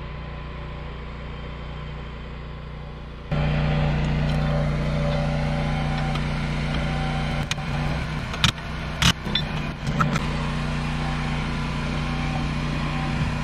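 Sharp metal knocks and clanks from a wrench working on an old manual anchor windlass as it is unbolted from a steel deck, a cluster of them in the middle, over a steady engine-like hum.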